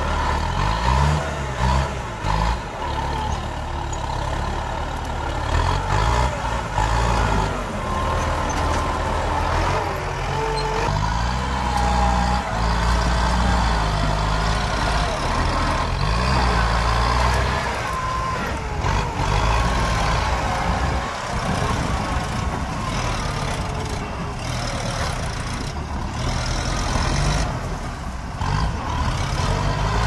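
Engines of two farm tractors with front dozer blades working under load as they push earth and a tree, the engine pitch rising and falling as the load changes.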